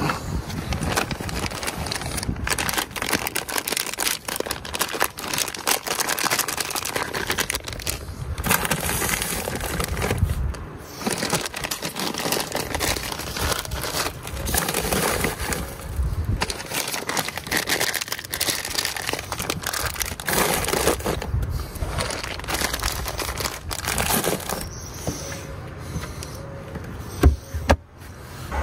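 Plastic bags of frozen vegetables crinkling and rustling as they are handled and packed into a chest-style fridge-freezer, with one sharp knock near the end as the freezer lid is shut.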